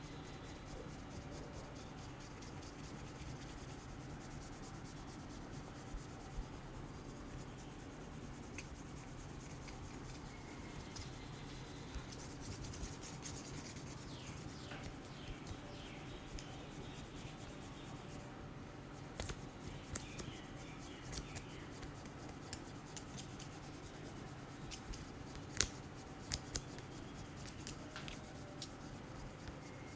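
Hands rubbing and kneading skin and hair in a massage, a soft scratchy friction sound with scattered sharp clicks and taps. A low steady hum runs underneath.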